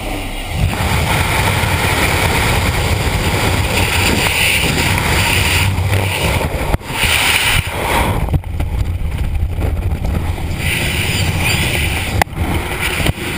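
Loud wind rushing and buffeting over a helmet-mounted camera's microphone during a skydive exit and the brief fall before the parachute opens, with a single sharp knock near the end.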